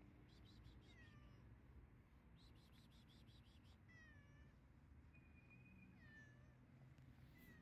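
Tabby-and-white stray cat meowing faintly, about five short, high meows that fall in pitch, one of them held steady. Two short runs of faint rapid ticking can be heard behind the meows.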